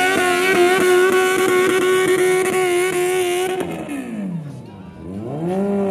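Garden-pulling tractor's engine running at high, steady revs while dragging the pulling sled. About three and a half seconds in the revs fall away sharply to a low idle as the pull ends, then rise again near the end.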